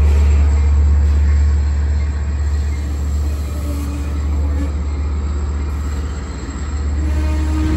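Diesel-hauled passenger train running by with a steady deep rumble.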